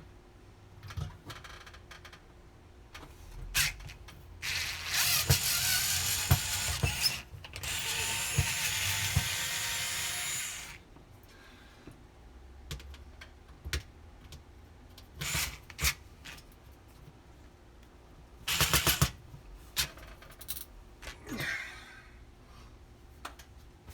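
Handheld cordless power driver backing out the screws of an oven's heating element, running in bursts: two runs of a few seconds each in the first half and a short one later, with clicks and knocks of screws and handling in between.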